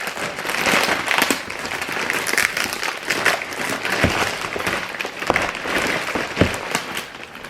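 Packing tape being pulled and ripped off a cardboard shipping box, with crackling, rustling packaging and a few knocks.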